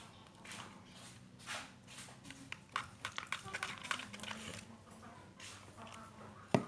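Sticky, unfinished clear slime being handled in its container, giving irregular soft sticky clicks and squishes, with one sharper click near the end.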